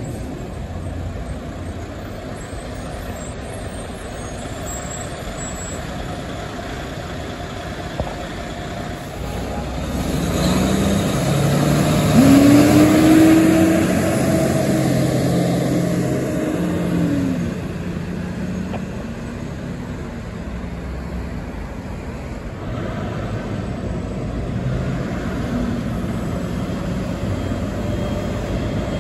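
Cars and heavy diesel trucks passing on a busy road. About ten seconds in, a fuel tanker truck drives by close and its diesel engine grows loud, the note rising and then falling away over several seconds.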